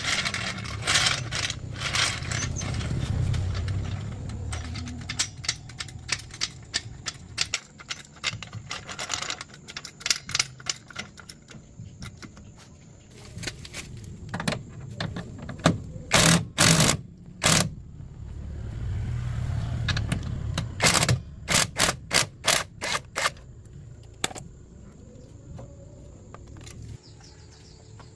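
A long run of sharp knocks and clicks, some in quick bursts, with a low rumble under them at times.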